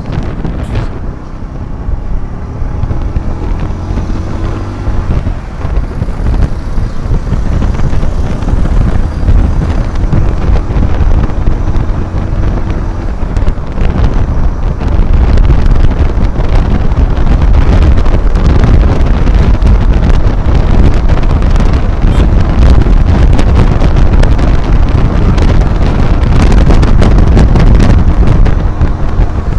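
Wind buffeting the phone's microphone on a moving motorcycle taxi, mixed with the motorcycle's engine and passing road traffic. A faint rising engine note shows in the first few seconds, and the buffeting grows louder as the bike picks up speed, then stays heavy.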